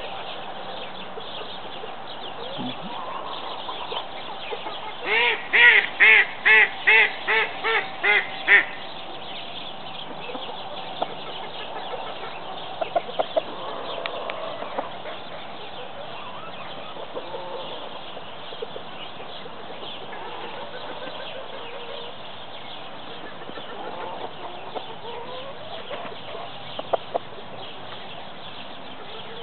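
A poultry flock clucking and chattering. About five seconds in, one bird gives a run of about eight loud calls in quick succession, and brief sharp calls come and go after that.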